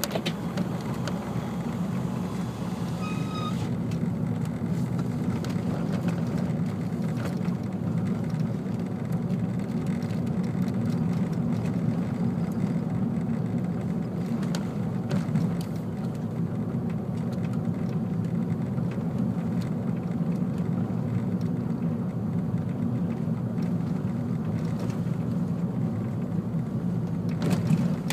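A car driving down a paved mountain road, heard from inside the cabin: a steady low rumble of engine and tyre noise. There is a short knock near the end.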